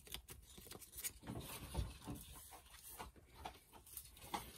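Faint handling noises: light taps, rustles and brief rubbing of a wet sandpaper disc and a wooden bowl as the sanding gets under way.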